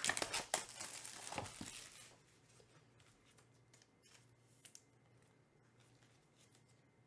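The foil wrapper of a trading card pack being torn open and crinkled by hand, for about two seconds, then only a few faint ticks.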